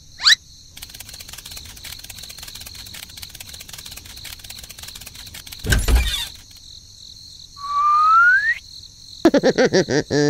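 Cartoon sound effects over a steady chirping of crickets: a quick rising whistle at the start, a low thump about six seconds in, a rising slide-whistle glide about eight seconds in, and a run of fast pulsing sounds near the end.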